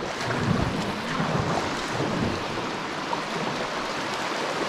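Shallow creek water rushing and splashing steadily around a kayak over a thin, rocky stretch, with a few low rumbles in the first couple of seconds.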